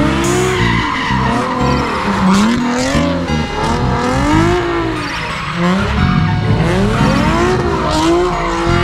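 Car engine revving up and down over and over while its tires squeal and skid, as a car is driven in a stunt such as donuts.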